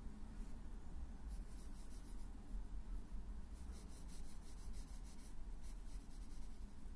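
Pencil scratching on graph paper in runs of short strokes as lines are drawn, over a low steady rumble.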